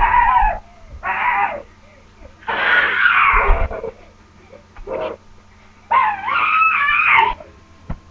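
A series of high-pitched, wavering cries, about five of them with short pauses between, each lasting up to about a second and a half.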